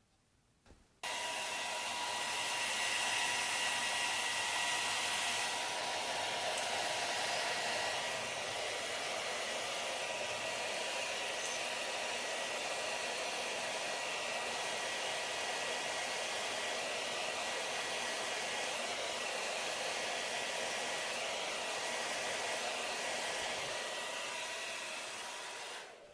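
Hair dryer switched on about a second in and running steadily, a rush of air with a faint whine, then switched off near the end. It is blowing heat to soften the adhesive holding down a phone part.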